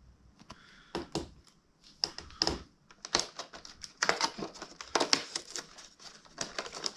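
Cardboard and foil packaging of a Pokémon advent calendar being handled: irregular rustling and crinkling with sharp crackles, starting about a second in and getting busier in the second half, as a compartment is opened and a booster pack is pulled out.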